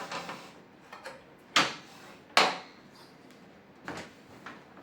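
Handling knocks and clacks of hard objects being set down or moved on a work surface: a few short sharp knocks, the two loudest about a second and a half and two and a half seconds in.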